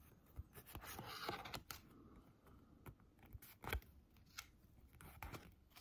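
Faint clicks and soft rustles of Pokémon trading cards being slid one by one from the front to the back of a small stack held in the hands. There are a handful of separate sharp ticks, with a longer soft rustle about a second in.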